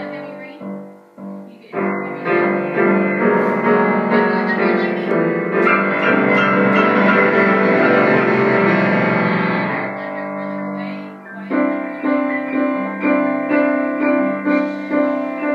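Steinway grand piano played four-hands by a child and a teacher, improvising a thunderstorm piece. A thick, dense mass of notes rings on for several seconds, eases briefly, then gives way to evenly repeated notes about twice a second.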